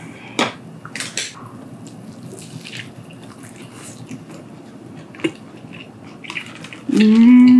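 A person chewing a mouthful of pork cutlet bagel sandwich: wet mouth clicks and smacks, then near the end a short, loud, steady hum of delight.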